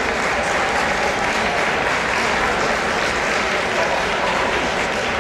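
Spectators applauding steadily, mixed with crowd noise.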